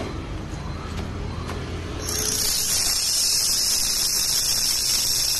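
3000 W handheld fiber laser welding gun firing on a steel tube joint: a steady high hiss starts suddenly about two seconds in and holds, over a low machine hum.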